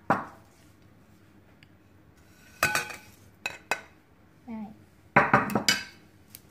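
Dishes and a serving utensil clinking and knocking against a bowl while fried shredded sweet potato, carrot and crispy fried glass noodles are tipped into it: a sharp clink at the start, another about 2.7 s in, a quick pair around 3.5 s, and a longer clattering, rustling cluster near the end.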